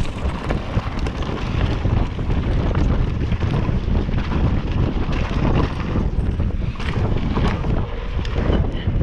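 Heavy wind rush on the camera's microphone from a mountain bike descending fast, mixed with the crunch and scattered rattling clicks of tyres and bike over loose gravel.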